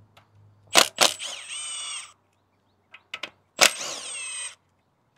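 Cordless power tool with a 10 mm socket spinning out ignition-coil hold-down bolts: two short runs of motor whine, each starting with a sharp click, about a second in and again a few seconds later. In each run the pitch dips as the bolt breaks loose and then rises as it spins free.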